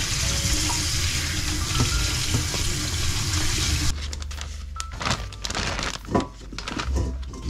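Tap water running onto fiddlehead ferns in a stainless steel colander, a steady splashing hiss that stops sharply about four seconds in. Then plastic zip bags crinkle and rustle in short bursts as the fiddleheads are packed into them.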